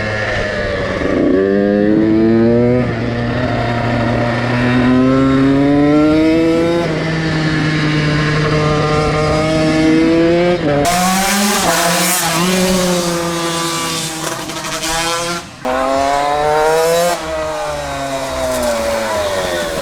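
KTM 85 two-stroke motocross bike engine revving hard on the track, its pitch climbing then dropping sharply again and again as it shifts up through the gears, with stretches where it falls away off the throttle. About halfway through, a loud hiss joins it.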